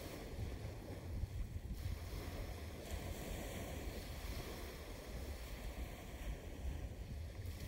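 Small waves washing onto a sandy shore, with wind rumbling on the microphone.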